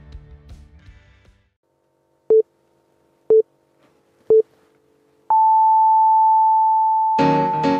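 Music fading out, then a countdown signal in the style of a time signal: three short beeps a second apart, followed by one long, higher beep. Keyboard music starts under the long beep near the end.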